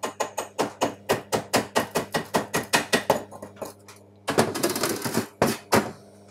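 Chipping hammer rapping slag off a freshly laid stick-weld bead on steel, about seven quick sharp taps a second, then two longer scratchy scrubbing strokes near the end as the bead is cleaned. A steady low hum runs underneath.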